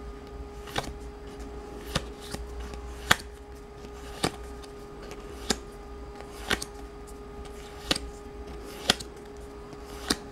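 Yu-Gi-Oh trading cards being flipped through by hand, with a sharp card snap about once a second as each card is moved through the stack. A steady hum runs underneath.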